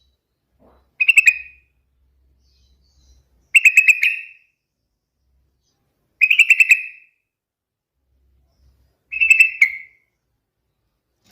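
Yellow-vented bulbul (trucukan) singing: four short, bubbly phrases of quick repeated notes, each under a second, coming about every three seconds.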